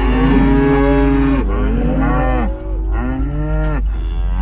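A herd of beef cows mooing loudly over one another, several long calls overlapping in quick succession as they wait to be fed range cubes.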